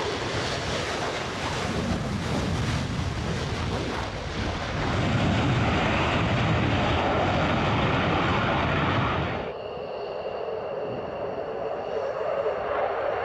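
F-15E Strike Eagle's twin jet engines in afterburner during takeoff and climb-out: a loud, dense rushing noise that grows louder about halfway through. Near the end it cuts abruptly to a duller, more distant jet noise.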